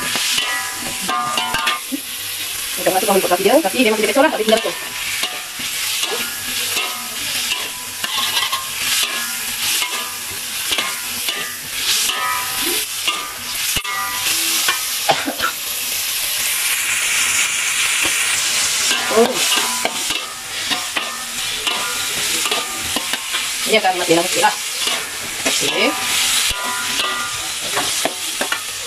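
Tomato wedges sizzling in hot oil in a metal wok, stirred with a metal ladle that scrapes and clicks against the pan over and over.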